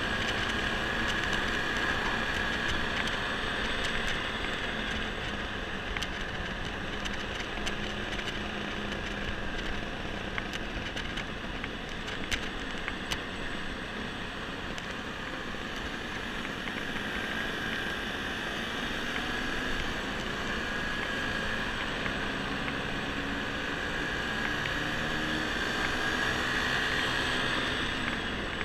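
Honda motor scooter's engine running steadily at cruising speed, heard from the handlebars amid wind and road noise, with a faint whine that wavers slightly.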